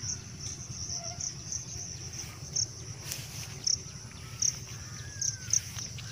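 Field ambience: insects keep up a steady high-pitched drone, with louder short chirps every second or so, while faint bird calls and a low rumble sit underneath.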